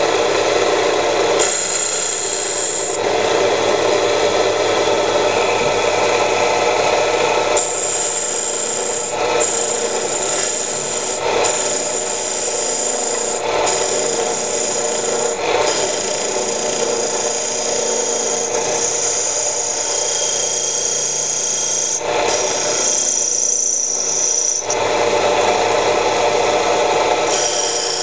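A small homemade wood lathe is running while a hand-held turning chisel cuts into the spinning wood. It makes a steady scraping hiss that shifts in tone every few seconds as the cut changes.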